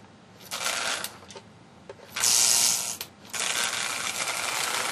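Vintage Lionel locomotive's motor and gears whirring in three short spells as power is switched on and off, the E-unit solenoid stepping the reversing switch between neutral and a running direction each time; the last spell starts a little past three seconds and keeps going.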